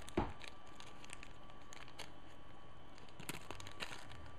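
A small clear plastic zip bag of beads crinkling and rustling faintly as it is handled, with scattered small clicks. There is a soft thump right at the start.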